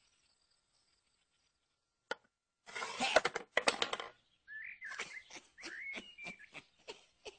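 Silent for about two seconds, then a single click and a burst of wooden chess pieces clattering in a wooden box. From about halfway in, an old man whistles short wavering notes while chess pieces are clicked down one by one on the board.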